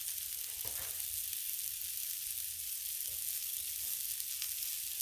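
Steady high sizzling of balls of ground beef mixed with breadcrumbs on a hot Blackstone flat-top griddle, with a couple of faint soft knocks as more are set down.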